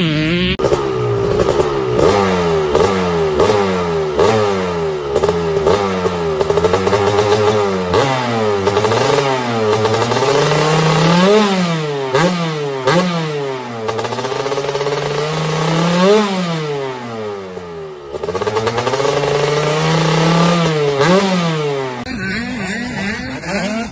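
Two-stroke dirt bike engine revved again and again. The pitch climbs and drops with each throttle blip, about once a second. A couple of seconds before the end it cuts to a quieter bike engine.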